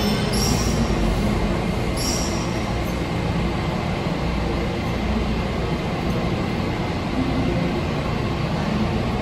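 Washington Metro Red Line subway train running through the station: a steady rumble with two short, high hisses about half a second and two seconds in.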